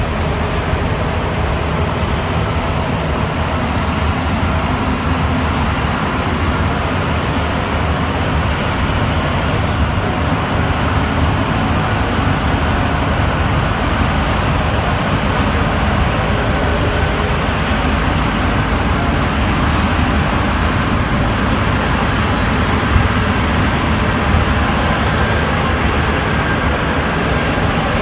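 Concarril NS-88 rubber-tyred metro train running at speed through a tunnel, heard from inside the car as a loud, steady rumble.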